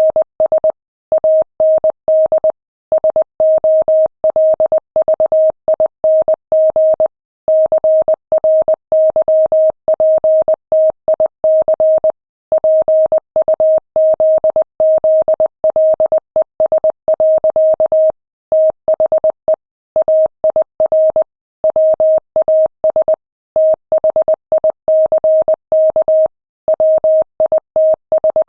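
Morse code sent at 20 words per minute: a single steady mid-pitched beep keyed on and off in dots and dashes, with short gaps between letters and longer gaps between words.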